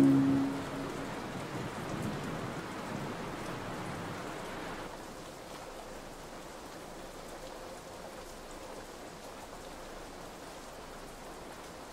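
Heavy rain falling steadily on hard ground, an even hiss that turns somewhat softer and duller about five seconds in.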